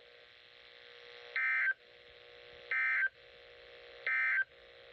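Three short bursts of Emergency Alert System (SAME) digital data tones, about a second and a half apart, over a faint steady hum. Their shortness fits the end-of-message signal that closes the Severe Thunderstorm Warning broadcast.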